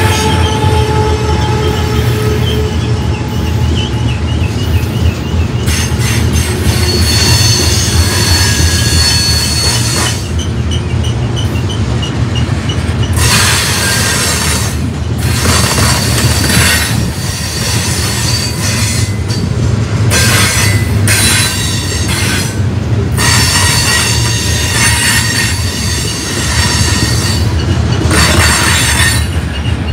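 Covered hopper cars of a freight train rolling past close by: a steady low rumble of steel wheels on rail, with high-pitched wheel squeal coming and going in patches.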